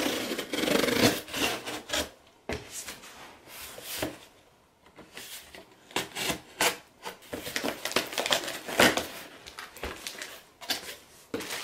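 Box cutter slicing through the packing tape on a cardboard shipping box in a series of short scraping strokes, with the cardboard flaps being pulled open.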